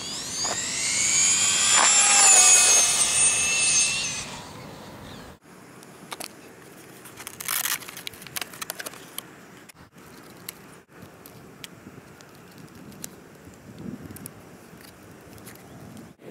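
Brushless 5700kv electric motor and drivetrain of a Mini E-Revo RC truck whining through a speed pass: the pitch rises fast as it accelerates, holds, then fades away about four seconds in. After that come light clicks and rustling as the truck is handled.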